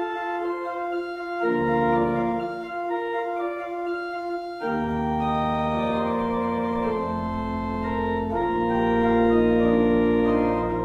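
Background organ music: slow, held chords that change every second or two, with a deep bass line that drops out and returns a few times.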